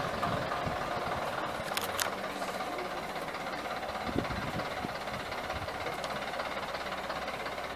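London Transport RT double-decker bus's diesel engine running steadily at low revs as the bus pulls slowly away, with two light clicks about two seconds in.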